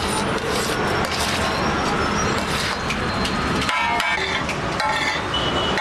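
Two flat steel spatulas scraping and knocking against a large iron tawa griddle while rice is tossed and mixed, with repeated scrapes and a few short metallic rings.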